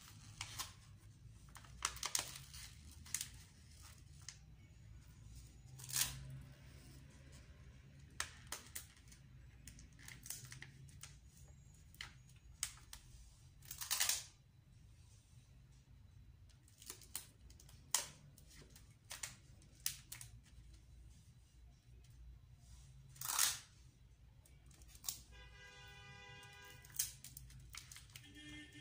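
Crinkling and rustling of a bag being folded and handled, with scattered sharp crackles and clicks. Near the end comes a short pitched tone lasting about a second and a half.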